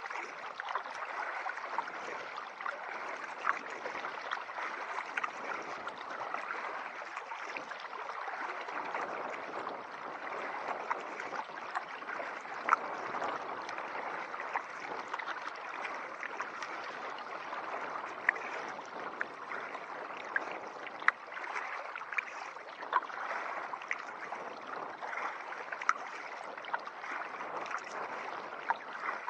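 Water lapping and splashing around a kayak on the river, a steady wash with scattered sharp drips and clicks at irregular times.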